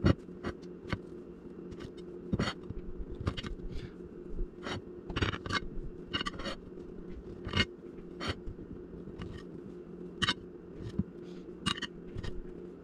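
Table knife cutting the crusts off slices of soft white bread on a plate: irregular scrapes and clicks, a few a second, as the blade saws through the crust and knocks against the plate, over a steady low hum.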